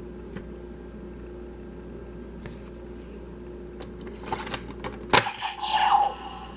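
Plastic clicks and a sharp snap from a toy Kamen Rider transformation device being handled, followed by a short burst of its sound effects.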